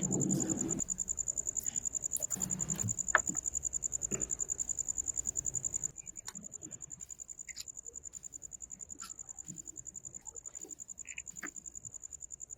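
An insect's steady high trill, pulsing rapidly, that drops to a quieter level about halfway through, with a few light clicks and knocks scattered through it.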